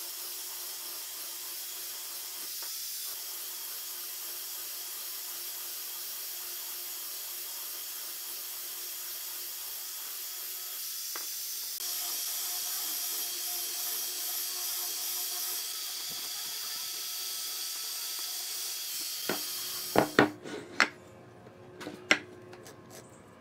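Angle grinder with a sanding disc running against a round wooden dowel: a steady high hiss over the motor's whine, a little louder from about twelve seconds in. It stops abruptly near the end, and several sharp knocks follow as a wooden board is set down and handled on the workbench.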